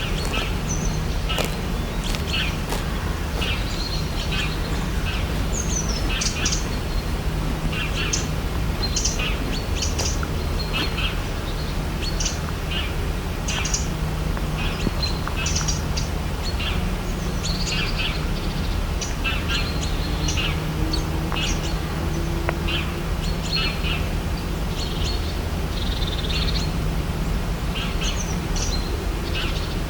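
Birds chirping: many short, scattered calls throughout, over a steady low rumble.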